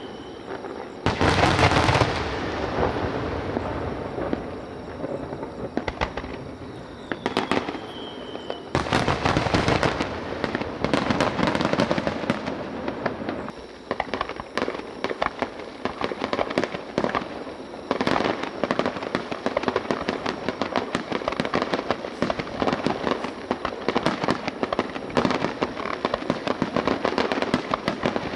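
Aerial fireworks shells bursting: two loud booming bursts about a second in and near the nine-second mark, with a short whistle before the second, then a dense, rapid crackling barrage through the second half.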